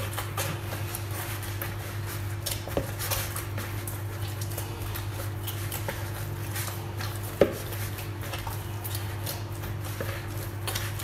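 Hands kneading pizza dough in a large bowl: irregular squelching and rubbing of the dough, with a few knocks against the bowl, the sharpest about two-thirds of the way through.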